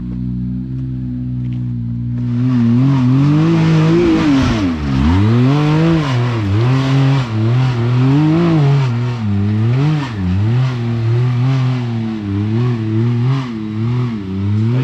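Side-by-side UTV engine idling, then from about two seconds in revving hard under throttle as it climbs a steep rocky hill. The revs rise and fall over and over as the driver works the throttle, with a sharp drop near five seconds.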